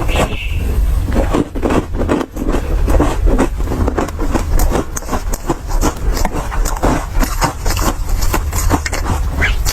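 Close-miked crunching and chewing of an ice ball coated in matcha powder: a dense, irregular run of crackling crunches as the ice is bitten and ground between the teeth.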